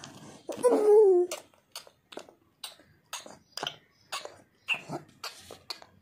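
A baby gives a short voiced sound that wavers and falls in pitch, then makes a run of short, sharp mouth clicks, about two a second.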